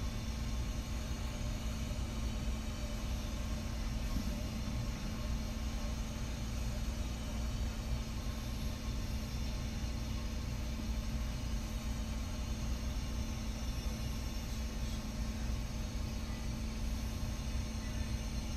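Steady machine hum with a low rumble, unbroken throughout.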